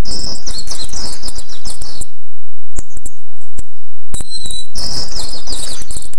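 Coucal chicks giving begging calls: two bouts of rapid, raspy, high-pitched chirps, each about two seconds long, the second starting near the end. A few clicks and a short whistle fall in the gap.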